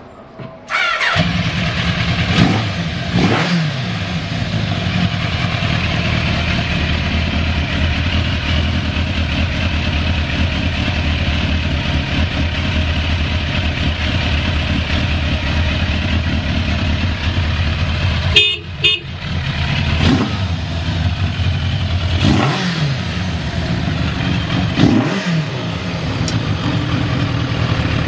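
Kawasaki GPZ1000RX inline-four motorcycle engine catching on the electric starter about a second in, then idling steadily. Several brief throttle blips make the pitch rise and fall, and there is a short break near the two-thirds mark. The idle runs evenly with no odd noises, the sign of a healthy engine.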